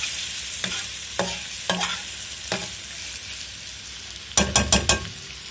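Metal spatula scraping and pushing stir-fried vegetables and chicken to one side of a steel pot, over oil sizzling steadily. A few seconds in come four quick metallic clanks, the loudest sound, as the spatula knocks against the pot.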